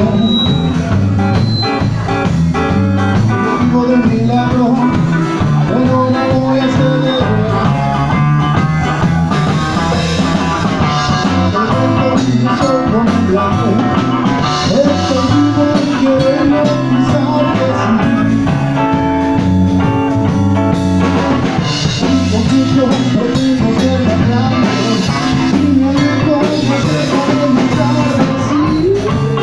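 Live rock band playing loud amplified music: electric guitar over a drum kit.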